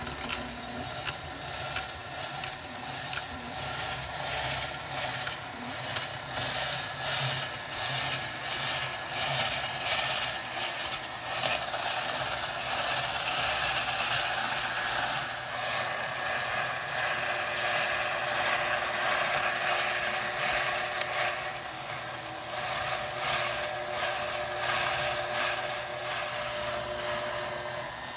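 KitchenAid stand mixer running its rotor slicer/shredder attachment, with carrots pushed against a fine shredding cone as it spins: a steady motor hum under a continuous rasping grate.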